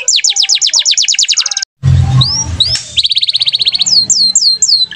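Domestic canary singing: fast trills of repeated falling notes, then rising whistles, another fast trill and slower swooping notes. The song breaks off in a short silent gap less than two seconds in, after which a low background hum sits under it.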